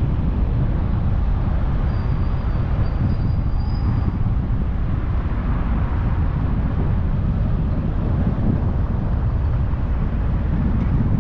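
Steady low rumble of road, tyre and engine noise from a car driving at town speed. About two seconds in, a faint thin high whistle lasts for roughly two seconds.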